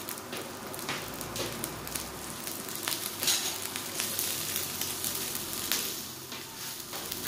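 Food sizzling on the plate of an electric 2-in-1 hotpot grill, with scattered sharp pops throughout.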